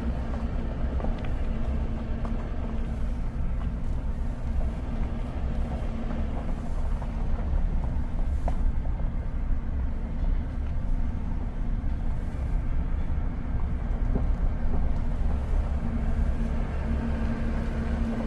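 Heavy paving machinery running with a steady low engine rumble and a constant hum, with a few faint clicks.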